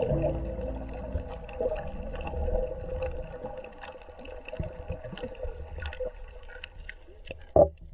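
Water heard through an underwater camera, muffled, with scattered short clicks and crackles, while soft background music fades away. A short loud noise comes near the end.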